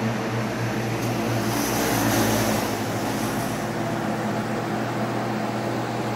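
1325 CNC wood router running: a steady machine hum from the spindle, with a louder, brighter hiss for about two seconds near the middle.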